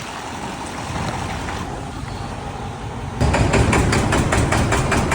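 MAN D28 common-rail diesel engine running with a sharp, regular knock of about five strikes a second, which gets much louder about three seconds in. The knock comes from a faulty injector, most likely debris in the injector's control-valve orifice.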